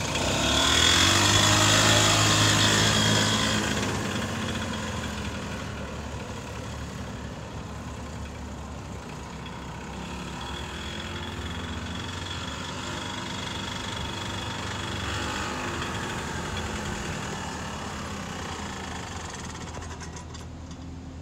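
Golf cart's small gas engine running as the cart pulls away, with a high whine over the engine note; it fades as the cart drives off, then grows louder again as the cart circles back.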